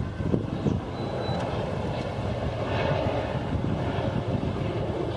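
Aircraft passing over, a steady rumble that swells slightly midway.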